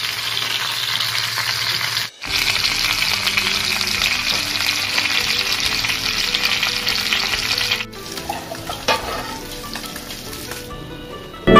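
Chicken pieces frying in hot oil in a pan, a steady sizzle. The sound cuts off briefly about two seconds in and again near eight seconds. After the second cut it is a softer sizzle of chicken cooking in thick masala, with a faint knock.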